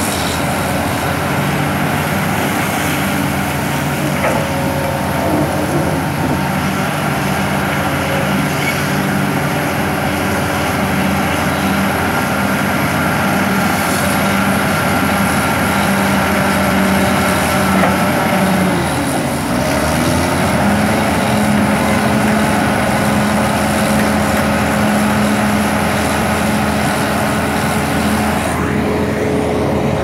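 Heavy diesel engines of a Caterpillar D6H LGP crawler bulldozer and a tracked excavator working under load, a steady loud drone. A little past halfway the engine note dips for a moment, then settles slightly higher.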